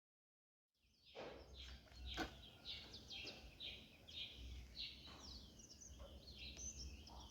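Birds chirping in many quick short calls over a faint outdoor background, fading in about a second in, with one sharp click a little after two seconds.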